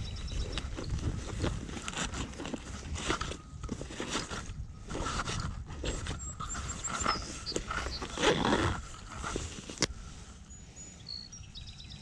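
Close rustling and light knocks of hands and clothing handling fishing line against a chest-mounted camera, over a low wind rumble. A small bird chirps in quick high runs a few times, the last near the end.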